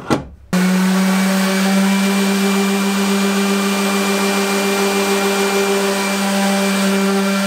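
Random orbital sander running steadily with 180-grit paper on a metal table-saw rip fence, sanding off rust and grime. The steady hum and hiss start abruptly about half a second in.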